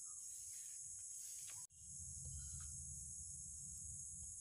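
Insects chirring steadily in a high, even band. The sound cuts out abruptly about a second and a half in, then returns with a low rumble underneath.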